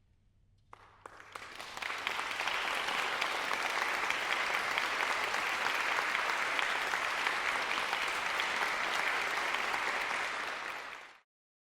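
Audience applauding. A few scattered claps start about a second in and build within a second into steady applause, which cuts off abruptly near the end.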